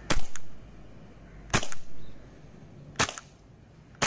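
Tokyo Marui HK USP Compact gas blowback airsoft pistol firing four single shots, each a sharp crack, spaced about one to one and a half seconds apart.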